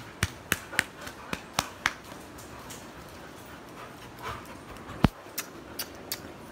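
Dogs' claws clicking irregularly on a tiled floor as they trot up close, with a dog panting. The loudest click comes about five seconds in.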